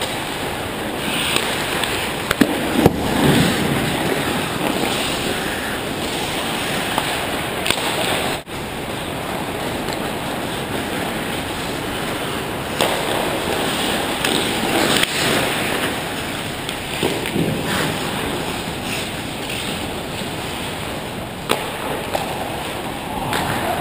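Ice hockey play heard from the goal: a constant rasp of skate blades scraping the ice, with sharp clacks of sticks and puck now and then.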